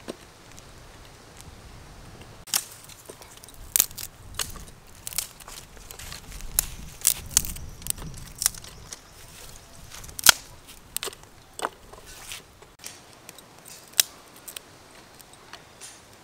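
Small twig fire in a clay bucket stove crackling, with sharp irregular pops and snaps as sticks are fed in, the loudest about ten seconds in.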